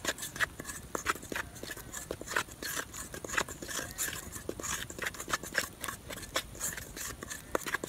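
Dry flour mix (flour, milk powder and salt) being stirred by hand in a metal bowl: an irregular run of soft scratching and scraping, several strokes a second.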